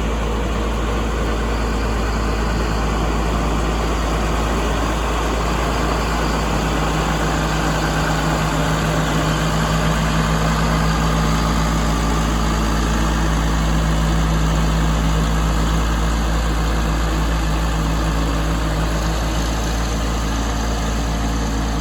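A large engine idling steadily at an even speed, with a low hum.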